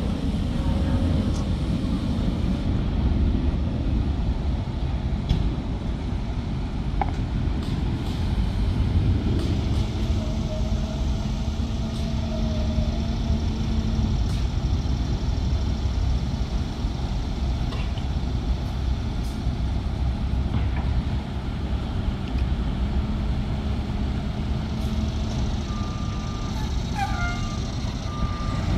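A Pierce Velocity fire engine and a Ford F-550 ambulance idling in the station bays, a steady low rumble. Near the end a repeating beep starts up.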